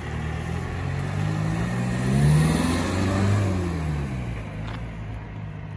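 GAZelle Next rescue van's engine as the van drives past. Its pitch rises as it speeds up, is loudest about two to three seconds in, then falls as it moves away.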